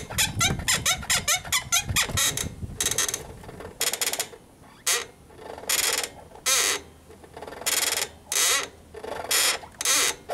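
Rear swingarm and suspension of a Suzuki AX100 motorcycle squeaking and creaking like an old bed: a quick run of short squeaks, about five a second, then slower, longer squeaks roughly once a second.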